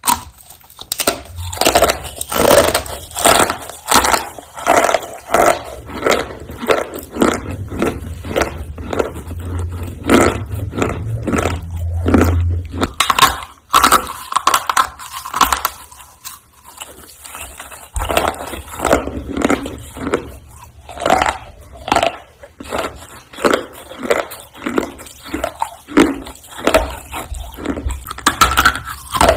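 Roasted clay roll being bitten and chewed, crisp crunches and snaps in quick succession, with a quieter lull about halfway through.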